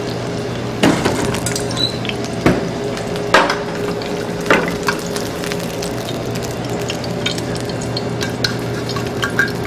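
Battered swordfish fillets sizzling in oil in a hot skillet, with metal tongs clanking against the pan several times in the first five seconds as the fillets are lifted out. A steady low hum runs underneath.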